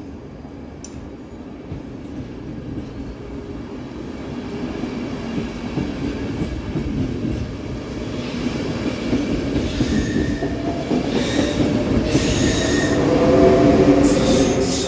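ÖBB double-deck CityShuttle push-pull train pulling out and picking up speed, its coaches running past and growing steadily louder. Near the end the Siemens class 1116 Taurus electric locomotive pushing at the rear passes, the loudest part, with an electric whine that rises in pitch.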